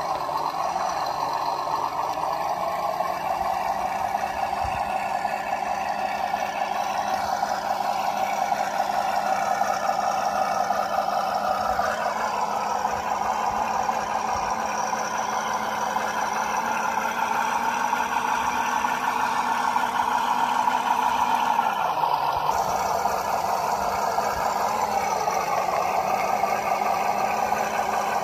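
WPL B36 Ural RC model truck crawling up a rocky dirt slope: its drive runs with a steady engine-like hum and whine that shifts in pitch a few times as the throttle changes.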